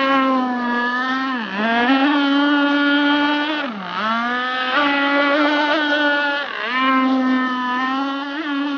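Radio-controlled model powerboat's engine running at high revs with a steady high-pitched buzz. Its pitch drops sharply and climbs back twice, about a second and a half in and again about four seconds in, with a smaller dip later.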